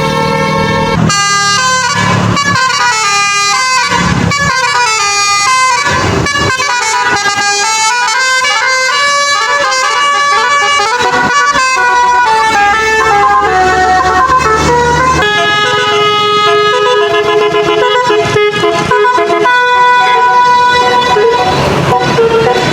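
Bus fitted with a Basuri telolet musical horn playing a melody: loud horn notes that step up and down in pitch in a continuous tune.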